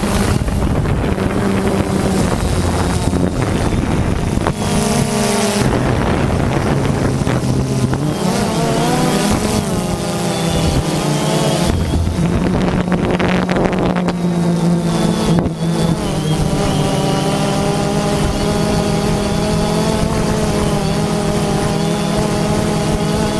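Quadcopter drone's electric motors and propellers whirring steadily, the pitch shifting up and down as the throttle changes.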